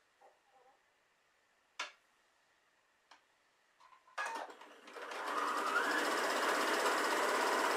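Electric domestic sewing machine stitching a seam through patchwork fabric pieces: a few faint clicks as the fabric is handled, then about four seconds in the machine starts, its motor speeding up and then running steadily at a fast stitch rate.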